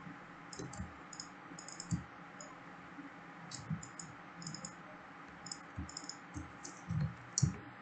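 Computer mouse and keyboard clicks, quiet and irregular, with a couple of louder clicks near the end.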